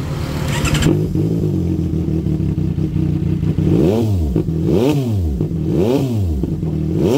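CFMOTO 675 SR-R's three-cylinder engine idling through its exhaust, then blipped repeatedly from a little past halfway, about once a second, each rev rising and falling quickly, for an exhaust sound check.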